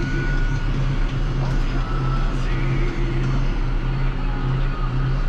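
Case MX120 tractor engine running at a steady speed, heard from inside the cab.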